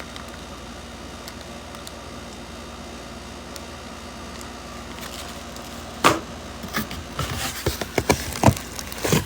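Steady low room hum for about six seconds, then handling noise as contents are taken out of a cardboard tool box: one sharp knock about six seconds in, followed by scattered clicks, knocks and rustles.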